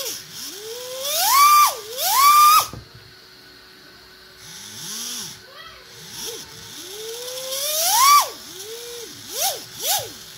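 Orca RC car electric motor, driven by a 120A ESC with a capacitor power booster, whining as the throttle is worked: short blips and three long runs that rise to a high whine and then drop away. The throttle pull is smooth, with no dead spots.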